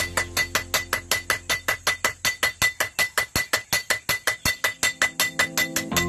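Two hand hammers taking turns striking hot steel on an anvil while forging a bolo blade, in a fast, even rhythm of sharp ringing blows.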